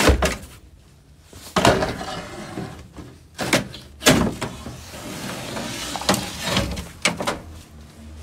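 A series of sharp knocks and clatters with scraping between them as a cut-out piece of van floor is lifted and handled.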